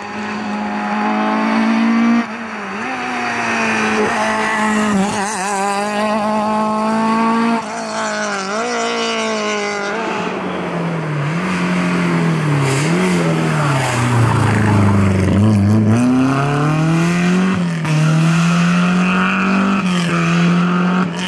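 Rally cars passing on a tarmac stage at speed, across several short clips. The engine note holds, drops and climbs again as the cars brake, change gear and accelerate.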